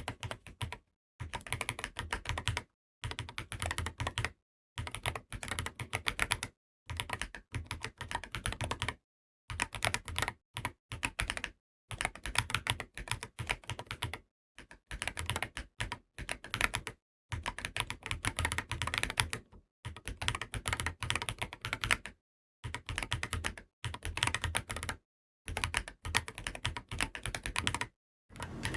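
Mechanical keyboard typing on Wuque Studio WS Flux Deep Clacky switches in a Wooting 80HE with its stock polycarbonate plate, KBDfans GT-80 case and PBT Cherry-profile keycaps. Rapid keystrokes come in bursts of one to two seconds, separated by short silent gaps.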